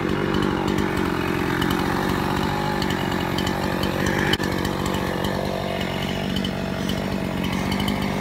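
Chainsaw running steadily without a break, with one short sharp knock about halfway through.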